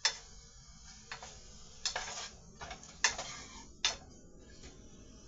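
Sharp, short taps and clicks of hard kitchen items, about five of them roughly a second apart, over faint room hiss.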